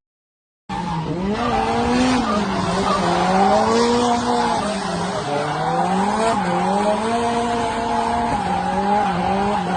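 Car engine revving up and down over a hiss of tyre noise, the sound of a car drifting, coming in a little under a second in.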